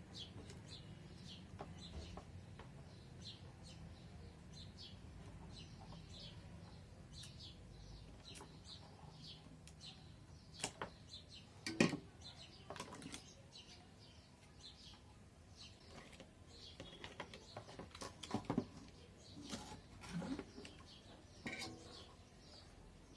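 Faint, repeated bird chirps over a low steady hum, with a few sharp clicks and knocks from about ten seconds in, the loudest around twelve seconds, as a switch is worked loose from the pedal's circuit board.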